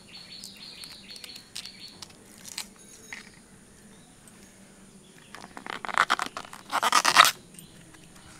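A fresh banana flower being cut open: light scraping and ticks, then two loud bouts of crisp crunching and crackling about five and a half and seven seconds in.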